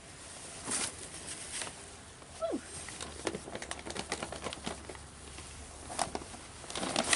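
Dry leaves and bedding rustling and crackling as they are handled and spread by hand, with scattered clicks. One short falling squeak about two and a half seconds in.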